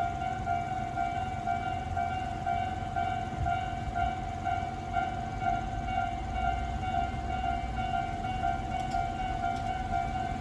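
Tobu Railway level-crossing warning alarm ringing its repeating electronic ding-ding tone, a slightly unusual variant of Tobu's standard crossing sound, over a low rumble.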